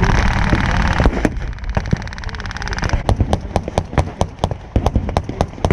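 Blank gunfire: a dense, fast rattle of rapid fire for about the first three seconds, then a stream of sharp separate shots, several a second.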